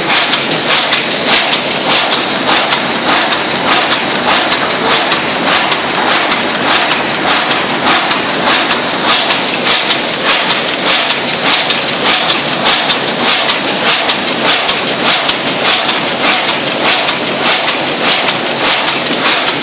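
Brausse automatic flatbed die-cutting machine running: a loud, dense mechanical clatter with a quick, even beat as the cardboard sheets are fed and cut.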